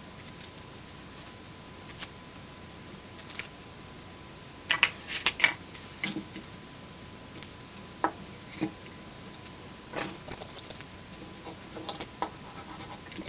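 Small clicks, taps and scratchy rubbing from handling the plastic parts of an SJ1000 action camera being reassembled by hand, coming in irregular clusters after a quiet first two seconds.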